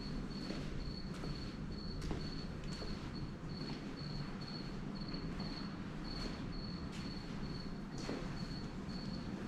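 Cricket chirping steadily, a high, thin pulse a little over twice a second, over a steady low hum with a few soft knocks.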